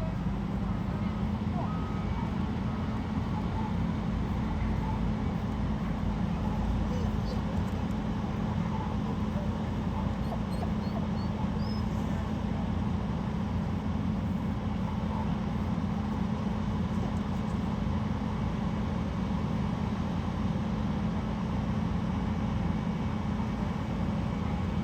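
Truck engine running steadily with a constant low hum. A few faint high chirps come through near the middle.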